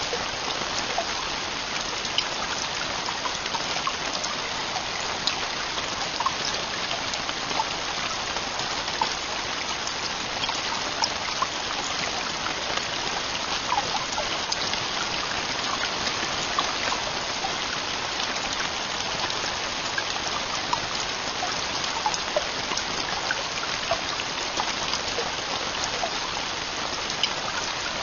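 Heavy rain falling steadily: an even hiss with many scattered sharp ticks of individual drops.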